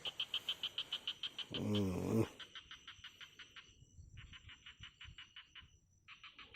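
Frogs calling in rapid pulsed trills, about nine pulses a second, repeated in several bursts of one to two seconds each.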